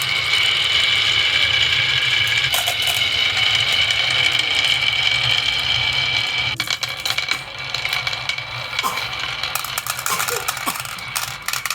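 Toy vehicles rolling down a wooden HABA slope track, a continuous dense clatter of small knocks that thins out about six and a half seconds in to scattered clicks and rattles.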